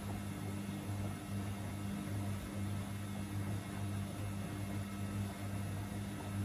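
Two front-loading washing machines, a Samsung and a Gorenje, in their wash cycles: the drums tumbling bulky loads of wet laundry, with a low motor hum that swells and fades in a steady rhythm.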